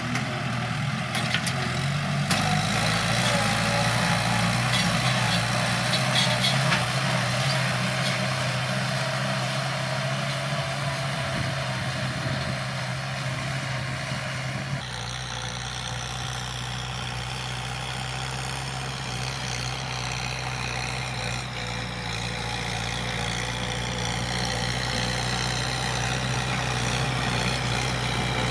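Kubota M7040SU tractor's four-cylinder diesel engine running steadily under load as it pulls a disc plough through dry ground, with a few light clicks in the first few seconds. The sound changes abruptly about halfway through.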